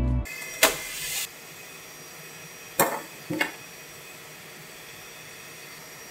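Handling of a 3D printer's flexible build plate as it is taken out of the enclosed printer: a sharp click and a short scraping hiss about half a second in, then a click and a knock about three seconds in, over a faint steady hum.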